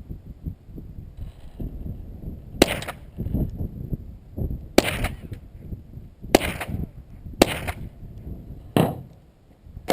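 Five .22 LR rifle shots, fired one at a time about one to two seconds apart, each a short sharp crack.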